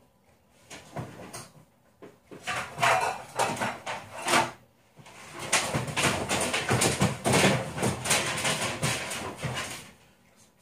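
Rustling, crackling handling noise in two stretches of several seconds, the first starting about two and a half seconds in and the second about five seconds in.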